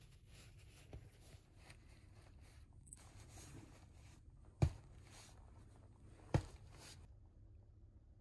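Soft rustling of fabric as a towel and a pillow are handled and pressed on a mattress, with two short soft thumps about a second and a half apart.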